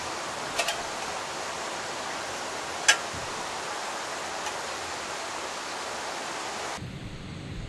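Steady rushing of a fast mountain stream, with a few sharp clicks, the loudest about three seconds in. Near the end it cuts abruptly to a low rumble.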